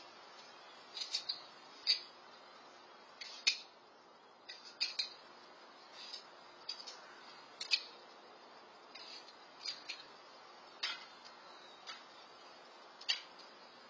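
Knife cutting through crisp apples: a string of short, sharp snaps and clicks, irregular, roughly one or two a second.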